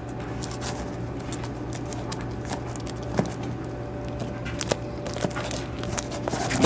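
Bagged and boarded comic books being flicked through by hand in a cardboard comic box: soft plastic rustling with a few scattered light ticks, over a steady low hum.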